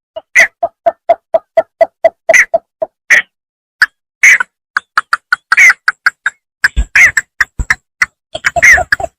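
Bittern calling: a rapid series of short, low notes, about four a second, mixed with sharp clicks that crowd together near the end.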